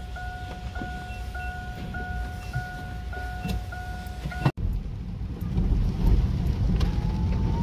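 An electronic beep repeating steadily, a little under twice a second, that cuts off abruptly after about four and a half seconds; then the low rumble of a vehicle driving on wet pavement in the rain.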